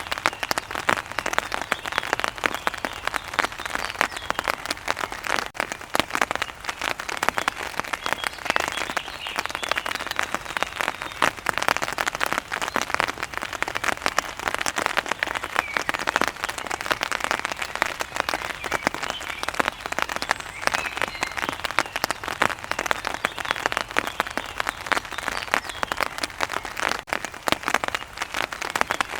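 Steady rain pattering on an umbrella: a dense, even spatter of countless small drop impacts.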